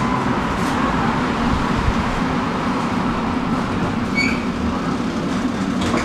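Electric tram running along the track, heard from inside: a steady rumble of wheels on rails under a low hum, with a brief high squeal about four seconds in.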